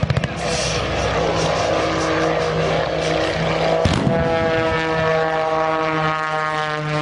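A biplane's propeller engine running during a low aerobatic pass. A rapid string of pops comes at the very start, and a single heavy blast from an air-show pyrotechnic explosion comes about four seconds in. After the blast the engine drone holds steady, its pitch rising slowly.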